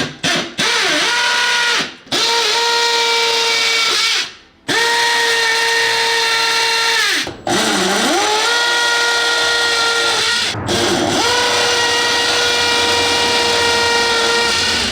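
Handheld power tool motor running in several spells of one to four seconds, with short stops between. At each start the whine rises in pitch, then holds steady.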